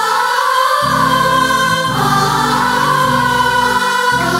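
Stage-band music: a held, wavering choir-like melody over a line of low bass notes that change about once a second.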